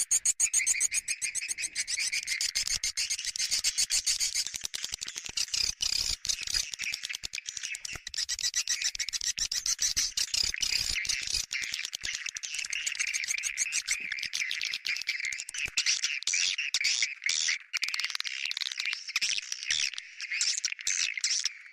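Swiftlet lure call track: a continuous dense chatter of rapid, high twittering chirps, the kind of call sound played to draw swiftlets into a nesting house.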